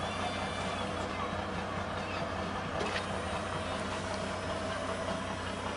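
A pickup truck's engine running steadily as the truck drives slowly, a low even hum with no music playing from the speaker rig.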